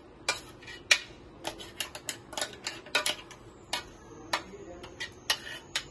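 Metal spoon scraping and knocking inside a stainless steel mixer-grinder jar while scooping out thick ground chutney: a string of irregular clicks and short scrapes, a dozen or more.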